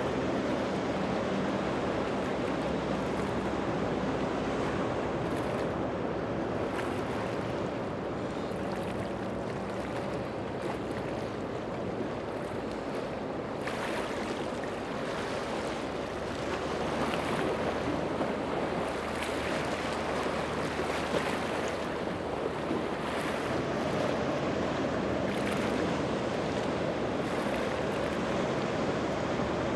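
Outboard-powered center-console boats running at speed, a steady engine drone under the rush of hull wake and spray, with wind on the microphone. The hiss of water grows stronger about halfway through.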